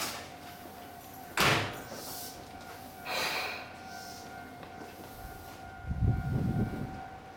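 A Tobu 10030-series electric train standing at a platform, humming steadily. A sharp door slam about a second and a half in is followed by a short hiss of air, and a low rumble comes near the end.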